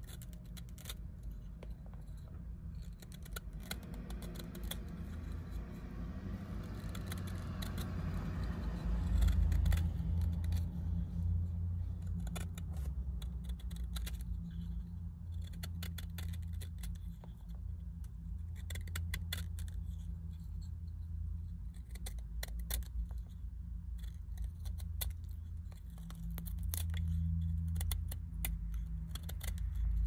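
Carving knife whittling cedar: many quick, irregular scraping and clicking strokes as the blade slices thin shavings from the wood, over a steady low rumble.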